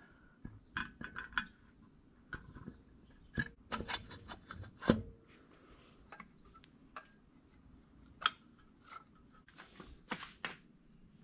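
Scattered light metallic clinks and knocks as an aluminium cylinder head is worked onto its studs and pushrod tubes on a VW Type 1 air-cooled engine, with a sharper knock about five seconds in.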